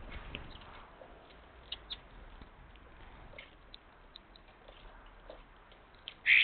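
Small birds giving scattered short, high chirps, with one louder call near the end.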